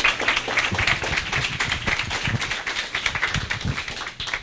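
Audience applauding, many hands clapping together, thinning out near the end.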